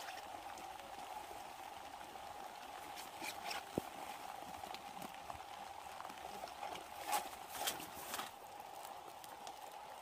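Scattered crackling and rustling clicks, busiest about a third of the way in and again near 7 to 8 seconds, over a steady high-pitched drone.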